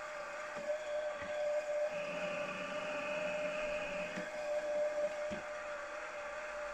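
Milling machine spindle running a small tapping-size drill into a metal casting for a 6BA thread: a steady motor whine, with a higher hiss of the drill cutting from about two to four seconds in.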